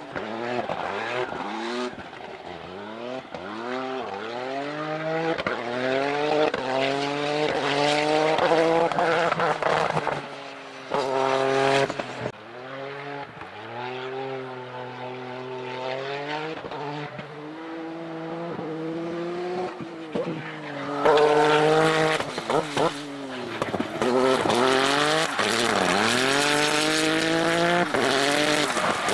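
Dacia Duster No Limit race car's engine revving hard through the gears, its pitch climbing and dropping back at each shift, again and again. Near the end the tyres squeal as the car slides, smoking.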